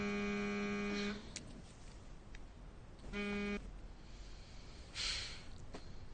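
Mobile phone vibrating with an incoming call: a steady low buzz for about a second and a half, then a second, shorter buzz about three seconds in. A brief soft rustle follows near five seconds.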